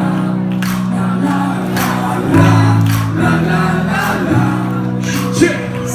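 Live pop music from a band on stage: a steady beat, long held bass notes and singing, with many voices from the crowd singing along.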